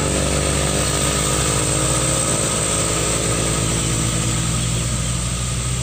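Light dump truck's diesel engine pulling under load as it climbs a steep hill past and away, a steady low engine note with layered harmonics.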